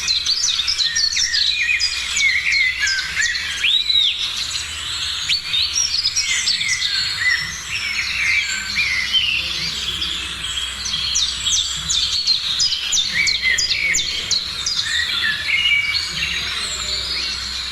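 Many birds calling and singing together in a busy morning chorus, a dense overlap of chirps, short sharp notes and trills.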